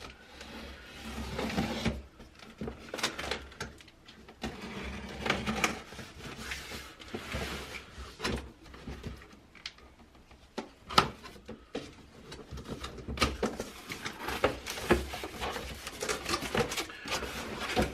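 Cardboard box being opened and its packaging handled: irregular rustling, scraping and knocking of cardboard and wrapping.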